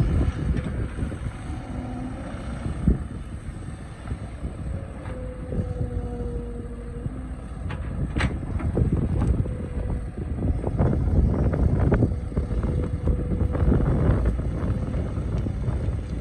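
Excavator's diesel engine running under load as it works, a steady low rumble with a faint whine rising and falling, broken by scattered knocks and scrapes from the bucket working among rocks.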